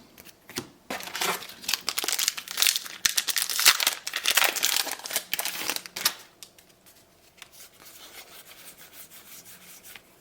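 Trading-card booster pack wrapper being torn open and crinkled, loudest from about a second in until about six seconds, then softer rustling as the cards are handled.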